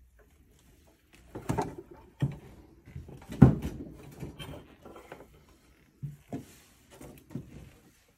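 Irregular knocks and thumps on wood, footsteps and bumps on old wooden barn floorboards, the loudest a little past three seconds in.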